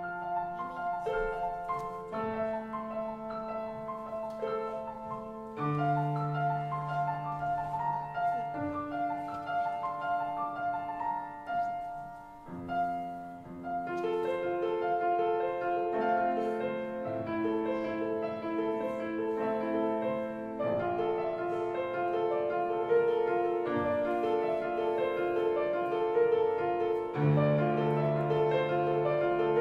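Solo grand piano playing: a melody of held notes over sustained bass notes. After a brief softer dip a little before halfway, the playing grows fuller and louder.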